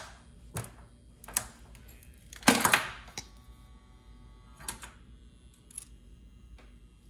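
Scattered clicks and knocks of small plastic and metal toothbrush parts and pliers being handled on a desk, with a louder clattering rattle about two and a half seconds in.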